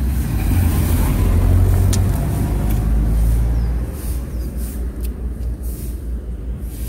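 Low engine rumble of a road vehicle, loudest over the first three seconds and then easing off, with a single click about two seconds in.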